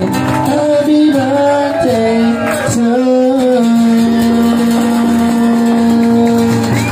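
A man singing live to acoustic guitar: a short sung phrase, then one long held note from about two seconds in until near the end.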